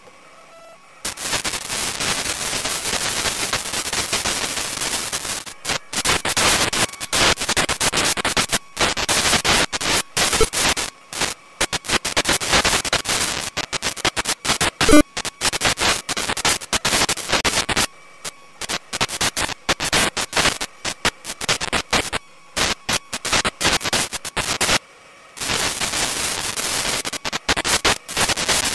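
Loud hissing static on a camera's audio track, starting about a second in and cutting out and back in abruptly many times, with one sharp crackle about halfway through: radio-frequency interference noise picked up by the recording.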